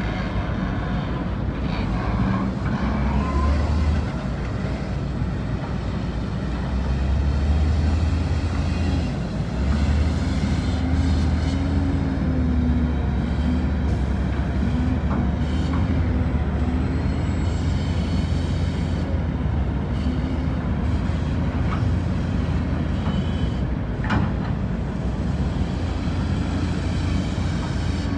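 Heavy diesel engines of a Caterpillar hydraulic excavator and a loaded dump truck running, a steady low drone with the excavator's engine note rising and dropping as it works. Near the start, shale rattles into the truck's steel bed as a bucket is emptied.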